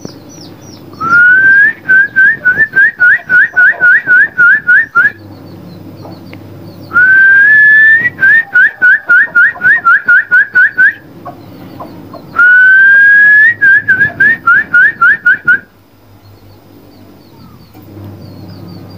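Loud shrill whistled call, three times: each time a long rising note followed by a quick run of short hooked notes.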